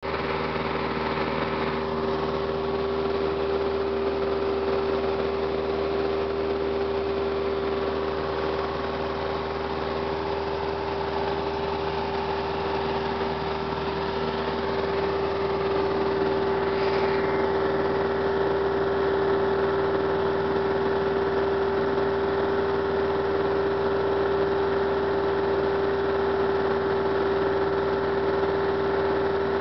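Piper Cherokee 140's four-cylinder Lycoming O-320 engine and propeller droning steadily in flight, heard inside the cabin, with one strong steady hum over the engine noise. The sound shifts slightly and gets a little louder a little past halfway.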